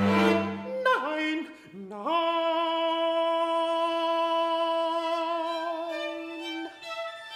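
A low bowed-string chord on cello and viola breaks off within the first second and gives way to sliding pitches; from about two seconds in a countertenor holds one long sung note with vibrato, accompanied by a string quartet, and it ends shortly before the end as violin notes take over.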